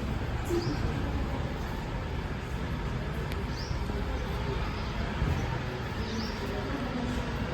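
Steady low rumbling background noise with a few short, high chirps.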